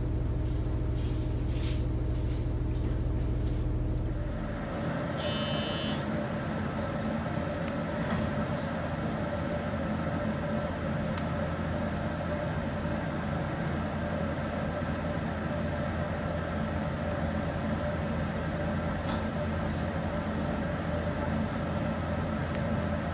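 Train running noise heard inside a passenger car. A steady low hum gives way about four seconds in to a broader running rumble with faint steady tones, and a short high beep sounds about five seconds in.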